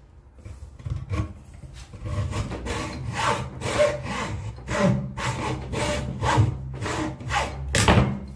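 Hand tool cutting wood in rhythmic back-and-forth strokes, about two a second, starting faintly and getting louder after about a second.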